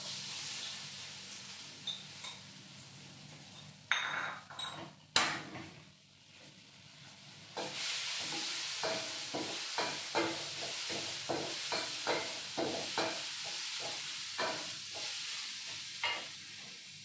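Ground spice paste (bumbu) frying in a little oil in a wok, sizzling while a spatula stirs and scrapes it in repeated strokes. There is a sharp clack about five seconds in, and the sizzle grows louder a couple of seconds later.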